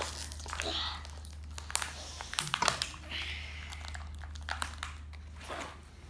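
Plastic toy packaging crinkling and rustling in irregular bursts as it is handled and opened.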